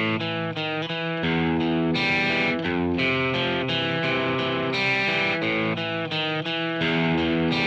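Instrumental intro of a song, before the vocals come in: a run of sustained chords, changing every half second to a second.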